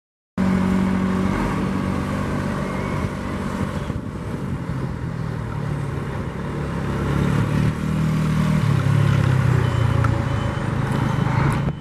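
Motorcycle engine running at low speed, its pitch stepping up and down as the throttle is opened and eased off unevenly. The sound cuts in suddenly just after the start.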